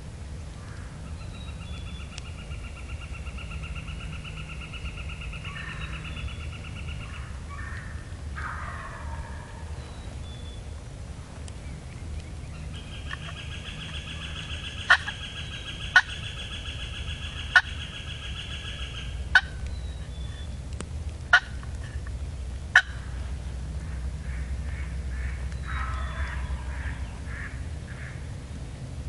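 Wild turkey tom gobbling, a rapid rattling call heard twice: about eight seconds in and again near the end. Long trilling sounds run before each gobble, and six sharp, loud clicks come a second or two apart in the middle.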